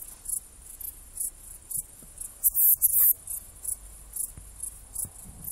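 Saddle-backed bush cricket (Ephippiger ephippiger) stridulating: short, high-pitched chirps about twice a second, with a louder run of pulses about two and a half seconds in.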